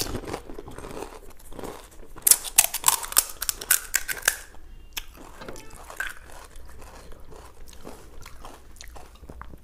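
Close-miked crunching of crisp pani puri shells, with a dense run of sharp crackles from about two to four and a half seconds in. Softer chewing and small clicks fill the rest.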